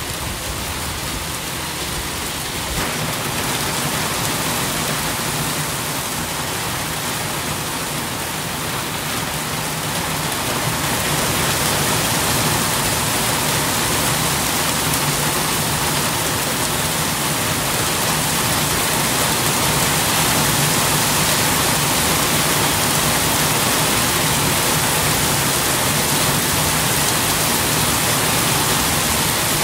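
Steady rain falling, an even hiss that grows louder a little over ten seconds in.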